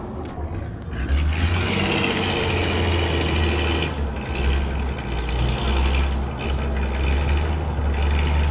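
A motor running steadily with a low hum, joined about a second in by a higher whirring.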